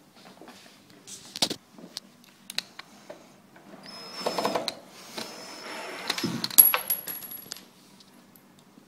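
Sharp metallic clicks and clinks as small metal hanger bolts and fittings are handled, with a stretch of rustling handling noise in the middle and the loudest click about two-thirds of the way through.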